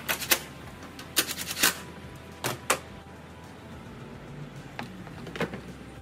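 Sharp clicks and knocks of hard plastic engine-bay parts being handled and pressed into place, in a few irregular groups with a quick run of about six clicks a little over a second in.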